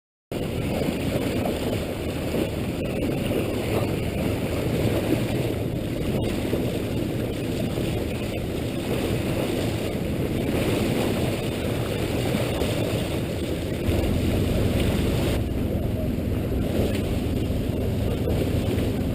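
Boat under way: a steady rush of wind and water with a low hum underneath, the low end getting louder about fourteen seconds in.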